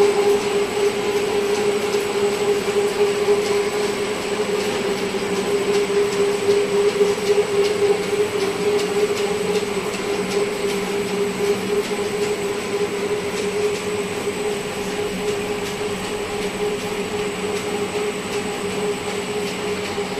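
Wire-making machinery of an insulated aluminium wire line (extruder, capstan and winding wheels) running: a steady mechanical din with a strong constant hum and a fine rattle of small clicks.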